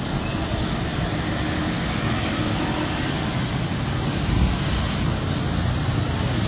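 Road traffic on a wet street: car and motorcycle engines with tyres hissing on the wet road in a steady wash of noise. One vehicle passes close about four seconds in.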